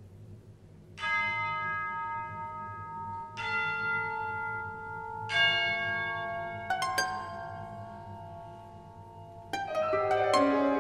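Symphony orchestra playing a slow contemporary piece: after about a second of near-quiet, soft struck chords are left to ring on, one about every two seconds, then coming quicker and overlapping near the end.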